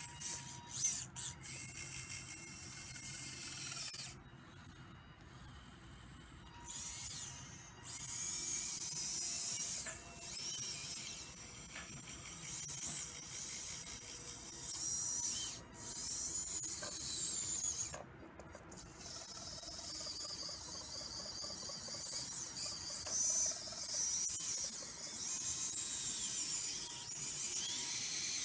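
Radio-controlled Schaeff HR16 model excavator working its arm and bucket: a high electric motor whine that rises and falls in pitch as the boom moves, stopping twice for a moment.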